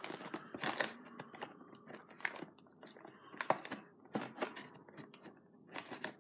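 Snack packaging crackling and crinkling as it is worked open by hand, in a string of sharp, irregular crackles.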